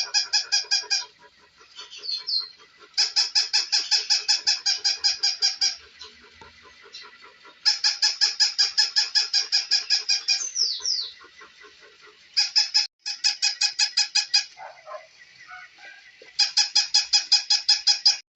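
Battery-powered toy dog barking in rapid, identical electronic yaps, about five a second. The yaps come in five bursts of two to four seconds, each of which cuts off abruptly.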